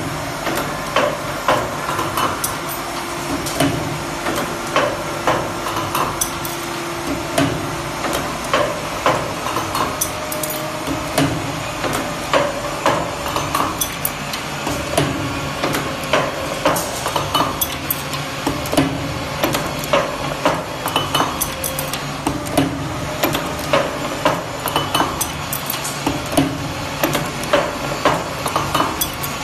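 Automatic hydraulic cotter pin (R-pin) making machine running, bending steel wire into pins: a steady machine hum under repeated sharp metallic clacks and knocks, the louder ones about one or two a second.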